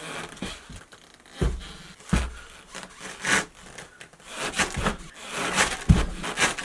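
Snowboarder's boots thudding onto a snowboard covered in hook-and-loop Velcro, with rasping rips as the Velcro on the boot soles pulls off the board when he jumps. About three thuds, with ripping strokes between them.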